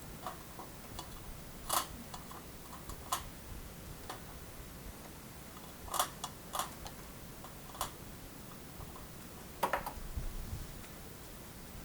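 Irregular light clicks of a computer mouse, about half a dozen spread unevenly, over a steady low room hiss.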